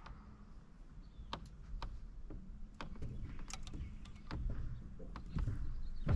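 Handling sounds while a small bass is held and worked on a boat deck: scattered light clicks and knocks, coming more often in the second half, over a low steady rumble.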